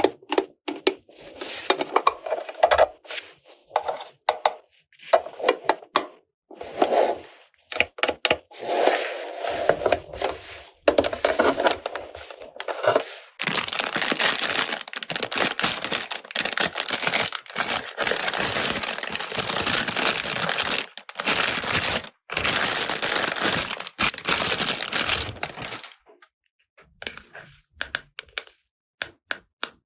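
Toy packaging being handled during unboxing: a run of short scraping and clicking sounds, then from about halfway a long stretch of dense crinkling, like plastic wrapping being pulled and crumpled, stopping near the end with a few small clicks.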